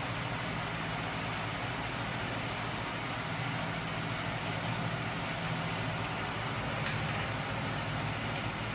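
Home-built magnet engine rig driven by small 12 V electric motors, running with a steady hum. A single short click comes about seven seconds in.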